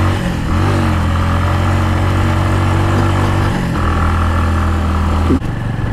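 Bajaj Avenger Street 150's single-cylinder engine running while riding, a steady low note that briefly dips about a third of a second in and again past the middle, then changes abruptly near the end.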